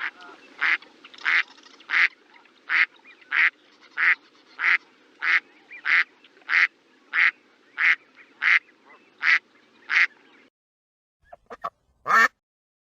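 A duck quacking in a steady run of about fifteen evenly spaced quacks, roughly one and a half a second, over faint background noise. After a brief pause come a few quicker quacks, the last one the loudest.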